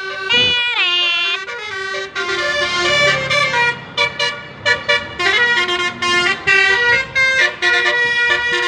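Basuri "telolet" multi-tone bus horn playing a tune: loud steady horn notes that step from pitch to pitch, breaking into quick short toots in the second half.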